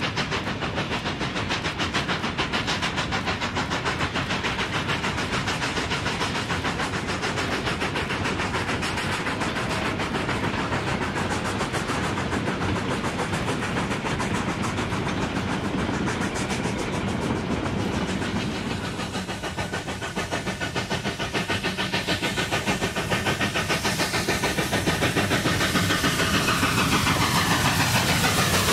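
Steam train running: a fast, even beat of about four strokes a second over steam hiss. Near the end a set of tones slides down in pitch.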